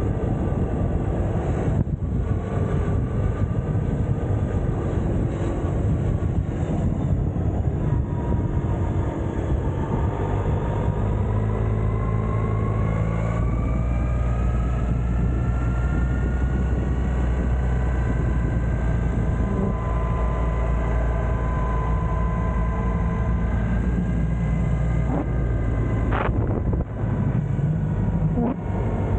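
Suzuki Burgman 650 maxi-scooter's parallel-twin engine running while riding, under a heavy rumble of wind and road noise. Its whine rises in pitch between about ten and fourteen seconds in, as the scooter picks up speed, then holds steady; a single short tick comes near the end.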